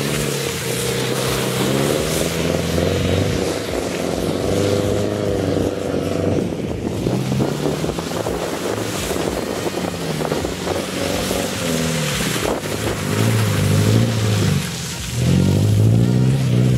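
Subaru Impreza wagon's flat-four boxer engine revving up and down over and over as the car is driven through mud.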